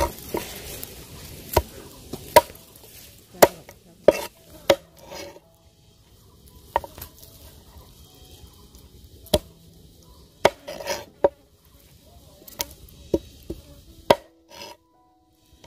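Heavy cleaver chopping through a whole pangas fish onto a wooden board: about fifteen sharp, irregular blows, some close together and others a second or two apart.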